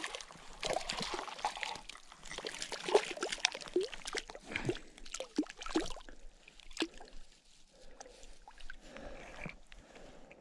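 A hooked cutthroat trout splashing and thrashing in shallow lake water at the bank, with quick sharp splashes for about six seconds, then fainter rustling.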